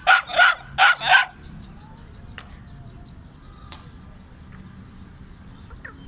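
A dog barking in a quick run of sharp barks, four of them within the first second or so, then stopping.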